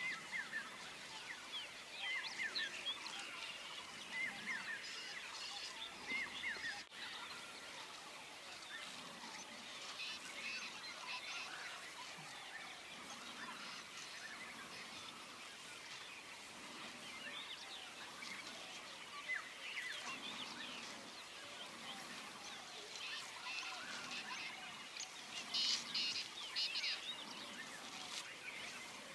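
Many birds calling at once in a busy chorus of short chirps and whistles, with a louder flurry of rapid high calls near the end.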